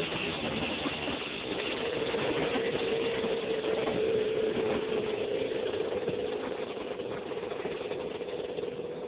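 1986 Honda TRX250R's two-stroke single-cylinder engine running at a steady pitch under way, heard up close from on board the quad, easing off slightly in the second half.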